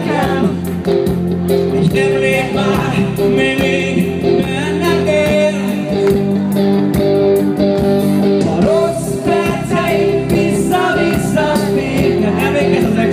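A man singing pop music live into a handheld microphone, over accompaniment with a steady beat, amplified through the stage speakers.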